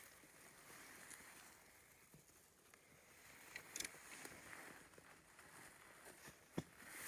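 Near silence: a faint quiet background with a few soft clicks, a small cluster a little under four seconds in and a sharper one about six and a half seconds in.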